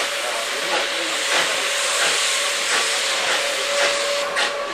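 Steam locomotives working a train up a steep grade, heard from the carriages behind: a steady rush of hiss and exhaust chuffs, with a thin steady tone running over it.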